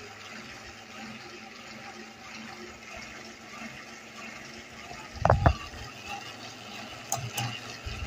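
3D-printed Panama gear-driven ceiling fan running, a steady whir with the noise of its plastic gear teeth meshing. About five seconds in come a few loud low thuds, and a couple of sharp clicks follow near the end.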